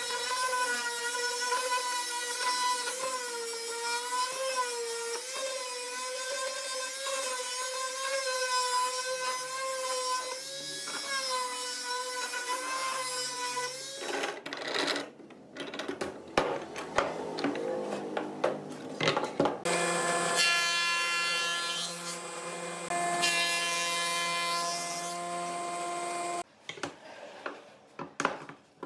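Electric palm sander running on a wooden frame, its motor whine wavering slightly under the pressure of the hand for about the first half. Then clicks and knocks of wooden slats and bar clamps, followed by another steady whine for several seconds.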